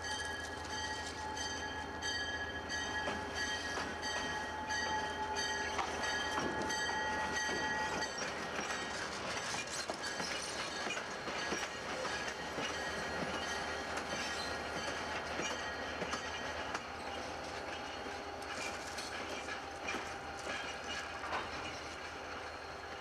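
Diesel freight train led by a GP39-2 locomotive rolling slowly past, with a heavy-duty flatcar's wheels clicking over the rail joints. A steady high tone is held through the first eight seconds or so, then cuts off, and the rolling fades a little towards the end.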